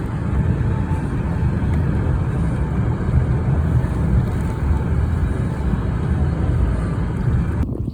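Snowplow vehicle engine running steadily under load while clearing snow from the ice, a constant low rumble with a rushing noise over it; it cuts off abruptly near the end.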